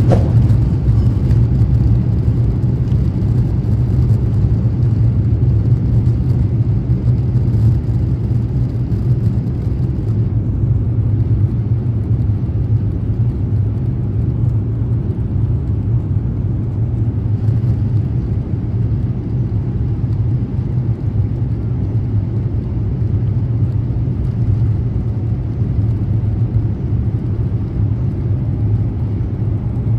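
Jet airliner cabin noise while the aircraft rolls on the ground: a steady low rumble of engines and wheels heard from inside at a window seat.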